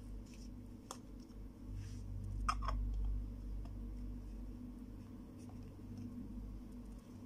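Small plastic toy kitchen pieces handled: a light click about a second in and a louder double clack of the plastic toy pot and its lid about two and a half seconds in, over a low steady hum.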